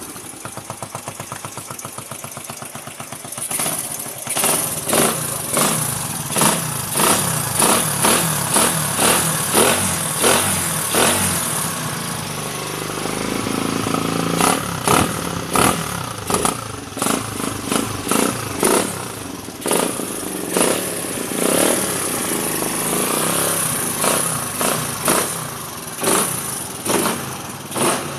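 Suzuki Raider 150 motorcycle's single-cylinder four-stroke engine, fitted with an aftermarket 'chicken pipe' exhaust. It idles for a few seconds, then is revved in quick throttle blips about once a second, with a longer held rev around the middle.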